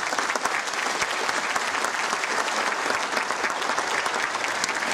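Audience applauding with dense, steady clapping that cuts off suddenly at the end.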